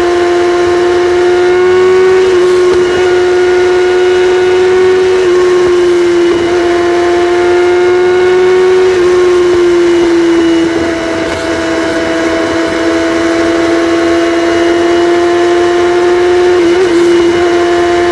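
Kawasaki ZX-6R inline-four engine with its catalytic converters deleted, running at a steady high pitch that shifts slightly up and down a few times and dips briefly about eleven seconds in.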